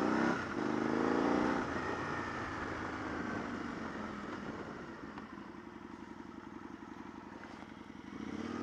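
Motorcycle engine under way: the revs climb in the first second and a half, then ease off and settle at low, steady revs for the second half, picking up again near the end.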